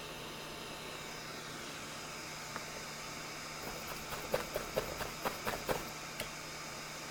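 Steady hiss, with a quick run of light clicks and taps in the middle from small tools working on a circuit board during soldering.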